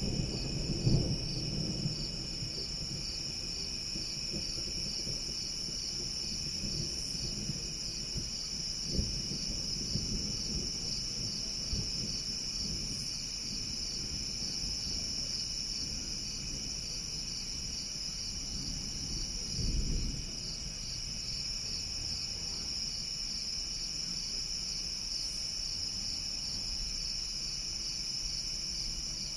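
Steady chorus of night insects, a high, evenly pulsing chirr. Low thunder rumble is fading out near the start, and one brief low thunder rumble comes about two-thirds of the way through.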